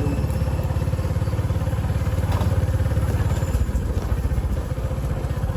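Motorcycle engine running steadily, with a fast, even low pulse.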